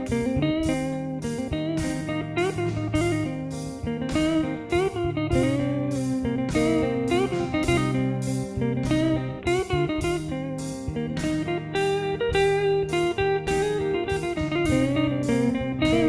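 Electric guitar playing a lead line with string bends, over a steady backing of held low notes.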